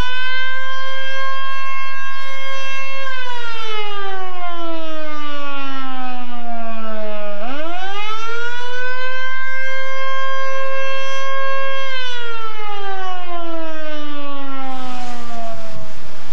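Mechanical warning siren winding up to a steady wail, holding it for about three seconds, then slowly winding down in pitch. About halfway through it winds up again and repeats the same rise, hold and fall.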